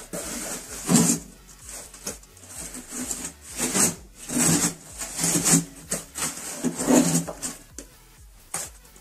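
Repeated scraping or rubbing strokes, irregular, roughly one to two a second, like a hand tool worked back and forth over a rough surface.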